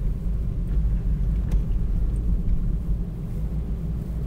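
Steady low rumble of a four-wheel-drive vehicle cruising at just under 30 mph on a snowy road, heard from inside the cabin.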